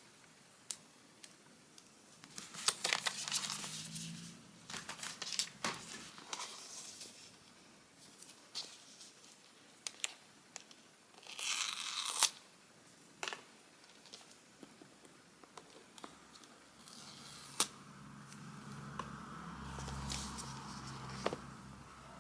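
Cardboard and paper packaging of an Apple Watch being opened by hand: scattered clicks and rustles, with a longer tearing sound about halfway through. A faint low hum comes in near the end.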